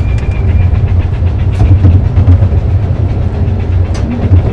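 Narrow-gauge garden railway train running along the track, heard from on board: a steady low rumble with a few sharp clicks from the wheels.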